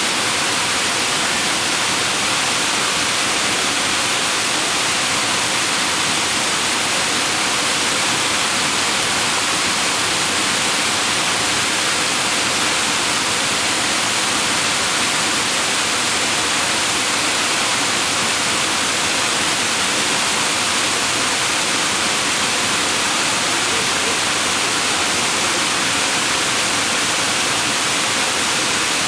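Waterfall's falling water: a steady, even rush of noise.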